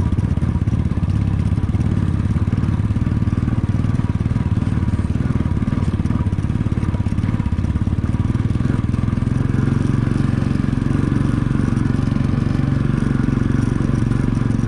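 Motorcycle engine running steadily under load, climbing a loose gravel track, its revs rising a little about nine seconds in. It is pulling sluggishly: the rider says it doesn't pull or pick up.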